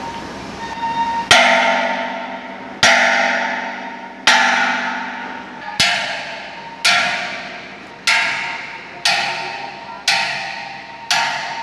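Hammer blows on metal, about nine strikes spaced a second or so apart. Each blow rings out and fades before the next.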